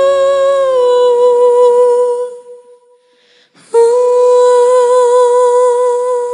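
A female voice in recorded music holding one long note with a slight waver; the note dips a little in pitch about a second in and fades away. After about a second of silence a second long held note begins.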